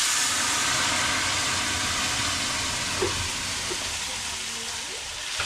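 Hot cooking oil sizzling loudly in a pan as food goes in. It starts all at once and eases off slowly, with a couple of small pops.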